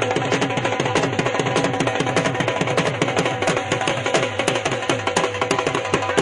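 Music driven by fast, dense hand-drum playing, with deep strokes that drop in pitch.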